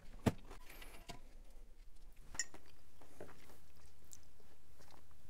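A few faint clinks and clicks of a coffee cup being handled while coffee is drunk, the sharpest one a fraction of a second in.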